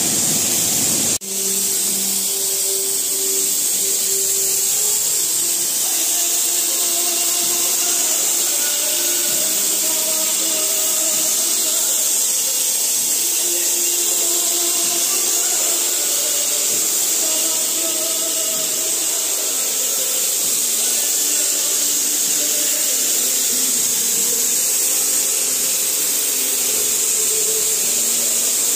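Compressed-air spray gun spraying, a steady loud hiss, broken briefly about a second in. A faint tune runs beneath it.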